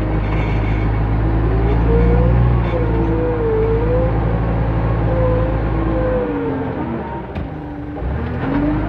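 JCB 3CX backhoe loader's diesel engine running under load as the front loader bucket is worked, with a whine that rises and falls over it. The engine eases off about six seconds in and picks back up near the end.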